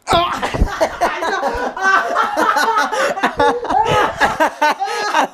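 Several young men laughing and yelling loudly without words, breaking out suddenly. There are a couple of low bumps from the camera being knocked about in the first two seconds.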